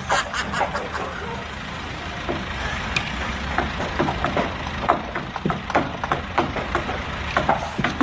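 A large engine running steadily, with a scatter of sharp knocks and clanks over it.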